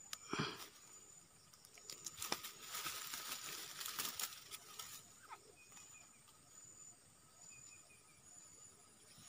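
Dry grass and straw rustling and crackling as hands rummage through it, loudest for about three seconds from two seconds in, with a few sharp clicks.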